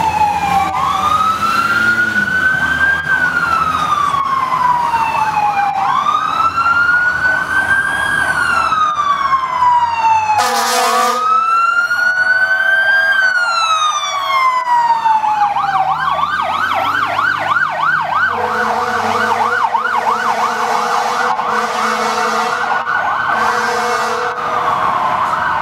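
Fire engine sirens passing: a slow rising-and-falling wail through three long cycles, switching to a fast yelp about two-thirds of the way through. A horn blasts once about ten seconds in and then in a string of short blasts near the end, over the trucks' low engine rumble.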